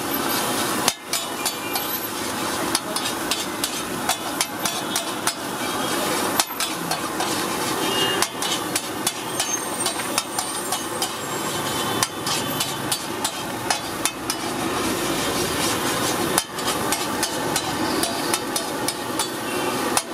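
A metal spatula rapidly clattering and scraping on a large flat iron griddle (tawa) as rice is chopped and tossed. It makes a fast, irregular run of clicks with a few brief pauses.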